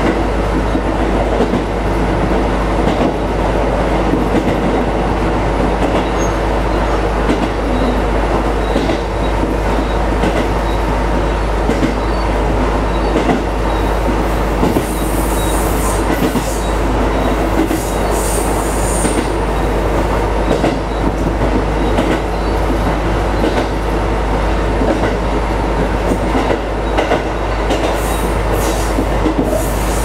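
KiHa 220 single-car diesel railcar running along the track, heard from the driver's cab: a steady diesel engine drone over wheel-on-rail noise. High-pitched wheel squeals come in on a curve about halfway through and again near the end.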